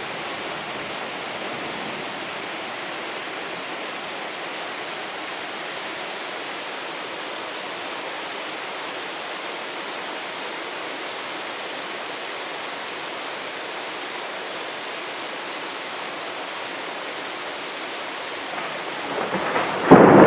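Steady rain hissing through a thunderstorm. Near the end a clap of thunder builds and breaks suddenly, much louder than the rain.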